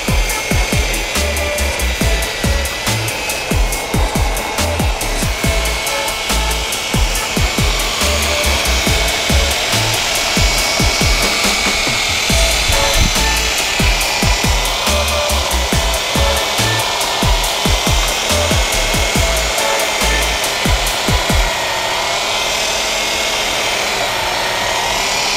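Ridgid dual-paddle mortar mixer running on its low gear, its motor whining steadily as the twin paddles churn a full bucket of thin-set mortar with a gritty scraping. Irregular low thumps stop about 21 seconds in.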